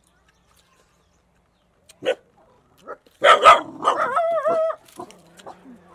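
A dog barking: one bark about two seconds in, then a louder cluster of barks a second later, followed by a drawn-out wavering cry.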